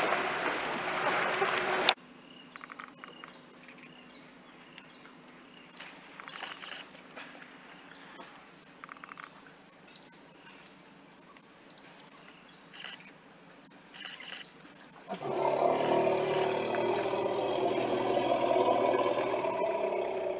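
Steady, high-pitched drone of tropical rainforest insects, with a few short chirps and clicks. It opens with about two seconds of loud splashing from elephants wading through the river, which cuts off suddenly. From about fifteen seconds in, a louder steady noise with a low hum comes in over the drone.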